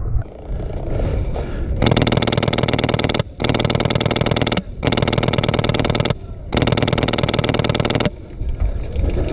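HPA-powered airsoft Mk48 light machine gun with a Polar Star F2 engine firing full-auto in four long bursts of rapid shots, each lasting roughly one to one and a half seconds, with brief pauses between them.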